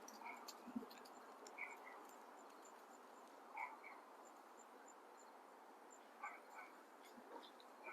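Near silence: faint outdoor hiss with a few soft, high chirps coming in pairs every second or two, and one light thump about a second in.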